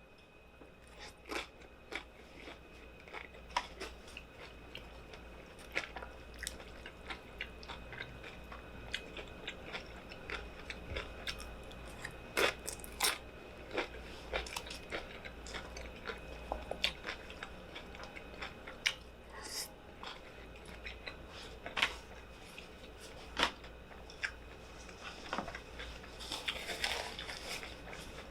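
A person eating close to the microphone: irregular chewing and biting with crunchy clicks and smacks, over a low steady hum.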